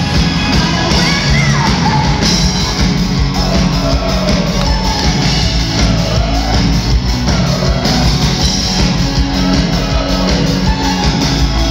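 Live pop-rock band playing loudly in a large hall: a woman singing lead over drums, electric guitar and keyboard.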